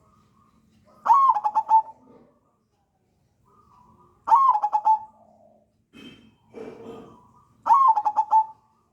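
Crossbred zebra dove (perkutut) singing its cooing song: three phrases, each a short rising note followed by a quick run of coos.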